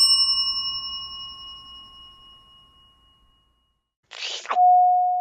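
A small bell's ring dying away over about three seconds. Near the end comes a short swish, then a loud steady chime note begins: the first, higher note of a ding-dong chime.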